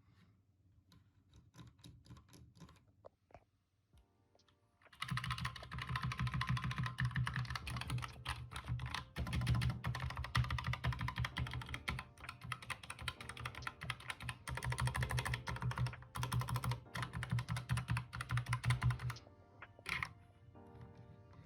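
Keystrokes on a Redragon K621 Horus mechanical keyboard with linear red switches: a few scattered key presses, then fast continuous typing from about five seconds in until near the end.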